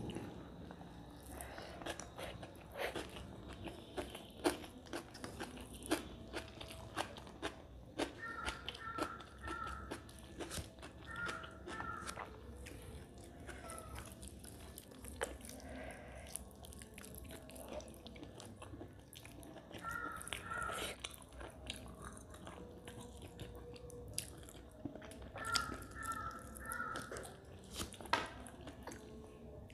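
Close-miked eating sounds from a person eating rice and mutton curry by hand, with chewing and many short sharp clicks throughout.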